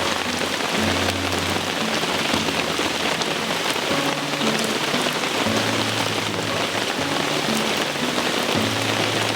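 Heavy rain falling steadily, a dense even hiss of drops. Low steady tones come and go beneath it every second or so.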